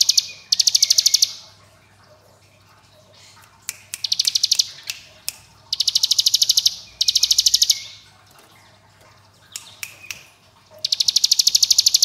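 Ciblek gunung (a prinia) singing its 'ngebren' song: rapid drilling trills of evenly repeated high notes, about fifteen a second. Each trill lasts about a second, mostly in pairs with pauses between, and a few short chips come in between.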